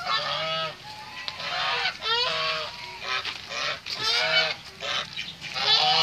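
Domestic geese honking repeatedly, one call after another with some overlapping.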